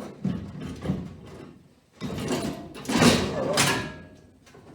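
Knocks and clunks, then a louder rattling scrape about two seconds in that lasts a couple of seconds: things being handled and shifted about.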